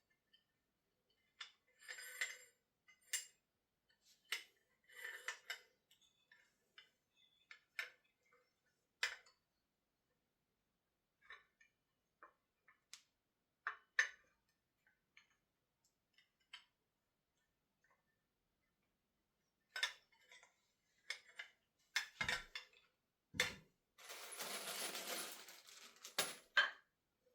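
Small metal parts and accessories of a wood lathe clinking and knocking as they are unpacked and set down, in scattered, irregular taps. A brief rustle, typical of packaging being handled, comes near the end.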